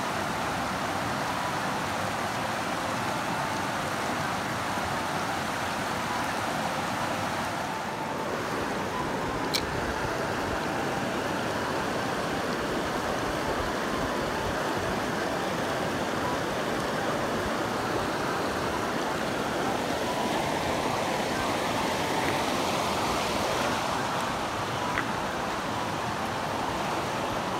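Shallow river water rushing steadily over stones and a low weir, an even unbroken rush.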